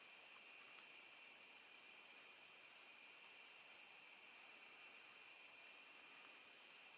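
Steady, high-pitched insect chorus, typical of crickets on a late-summer evening, with several shrill pitches held at once and no break.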